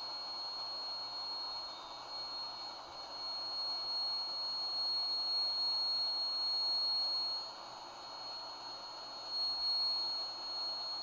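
Electric blower running steadily, pushing air through a hose into an inflatable suit: a steady rush of air with a thin high whine over it.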